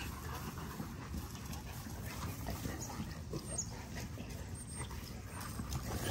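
A group of XL bully dogs playing rough on grass, running and scuffling together.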